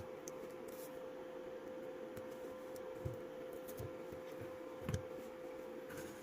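Quiet handling of a vacuum cleaner's lithium battery pack while insulation is stuck onto its sides: faint rustling and scratching, with two soft knocks about three and five seconds in, over a steady hum.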